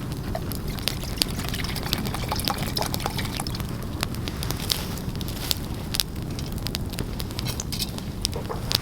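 Campfire crackling, with many sharp irregular pops over a steady low rush.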